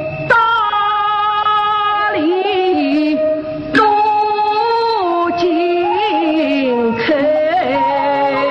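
Yue opera aria sung by a woman's voice, long notes held and wavering in pitch, with traditional instrumental accompaniment.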